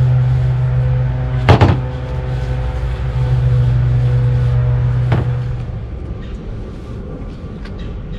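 A steady engine hum, fading out about six seconds in, with two sharp knocks, the first about one and a half seconds in and the second about five seconds in.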